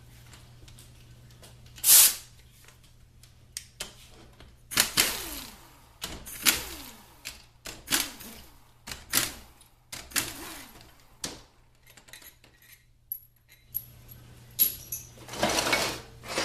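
Metal parts of a 4L60E transmission's oil pump clinking and knocking as the pump is taken apart on the bench: one loud knock about two seconds in, then a string of ringing clinks and a denser clatter near the end.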